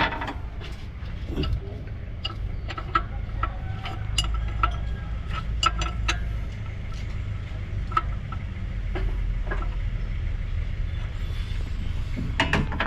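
Scattered metallic clicks and clinks of hand tools working on an engine's exposed bottom end, over a steady low rumble.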